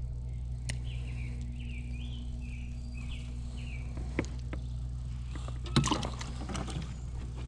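Steady low hum with a run of short, repeated chirping calls, a few sharp clicks, and a brief splashing clatter about six seconds in.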